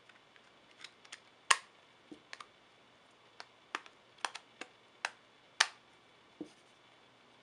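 Tight-fitting plastic back cover of a Sony Xperia Sola snapping into place as it is pressed on around its edges: about a dozen sharp clicks at irregular intervals, the loudest about a second and a half and five and a half seconds in.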